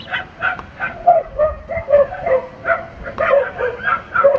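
Dogs barking in quick succession, about two or three barks a second, some barks overlapping.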